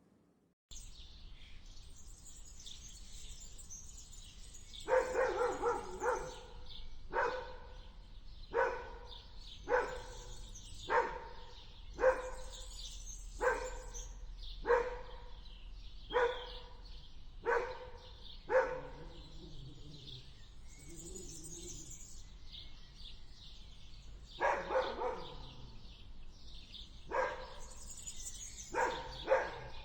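A dog barking, first in a quick cluster and then one bark about every second for around ten barks, then more barks after a pause of several seconds. A steady high chirping of birds runs underneath.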